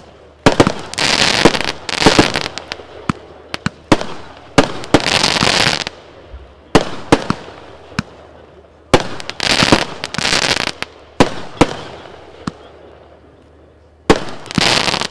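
Rubro Hoax and Insomnia firework cakes firing: sharp launch and burst reports, several followed by about a second of dense crackling from the breaking stars. The volleys come about a second in, around five seconds in, around ten seconds in and again near the end, with a quieter lull before the last.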